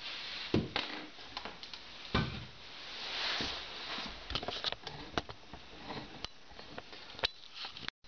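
A plastic hair dryer and other small objects being moved and set down on a table: scattered knocks and clunks, with a stretch of rustling and scraping about two to four seconds in.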